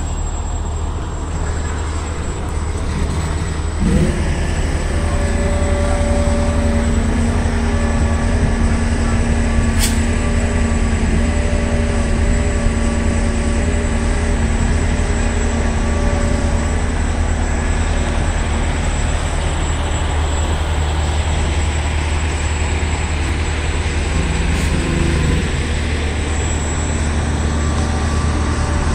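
Diesel engine of a semi tractor hauling a heavy load on a multi-axle trailer, a steady low rumble that grows a little louder about four seconds in.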